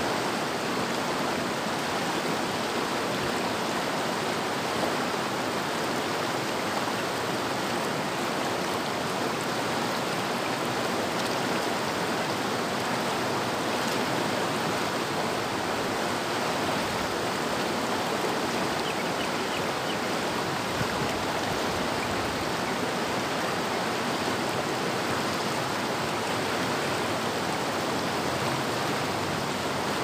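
River running with a steady, even rush of water.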